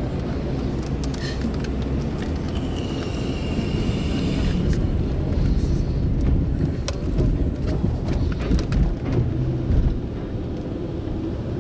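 Low, steady rumble on a ferry's car deck at the dock, with a brief faint high whine a few seconds in and a few sharp knocks in the second half.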